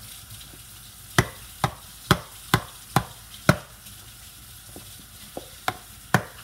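Sharp slaps of a hand on an upturned plastic body lotion bottle, six evenly spaced about two a second, then a pause and four more: trying to knock out lotion that is stuck in the bottle.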